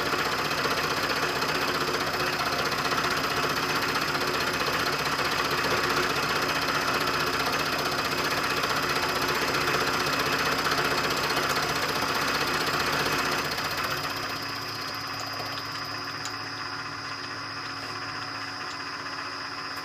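Milling machine end mill cutting into a round metal handwheel, a steady mechanical running sound of the spindle and the cut. About fourteen seconds in the cutting noise drops away and the machine keeps running more quietly.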